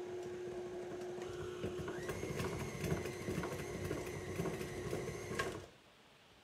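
Stand mixer motor running with its paddle beating thick cookie dough: the final mix after the last dry ingredients go in. A steady hum, with a higher whine joining about two seconds in, then the mixer is switched off and stops abruptly about five and a half seconds in.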